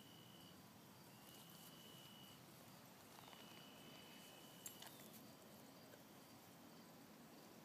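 Near silence: faint outdoor ambience, with a thin high steady tone that comes and goes a few times and a faint click a little past halfway.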